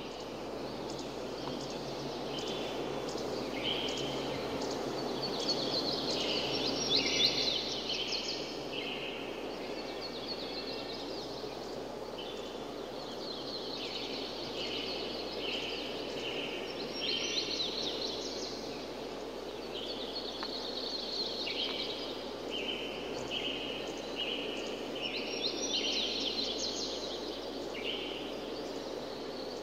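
Steady rush of a waterfall, with songbirds singing short phrases of quick notes over it every few seconds.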